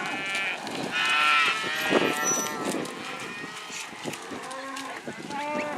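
Cattle mooing and bawling, several overlapping calls. The loudest come in the first second and a half, then they fade to quieter ones.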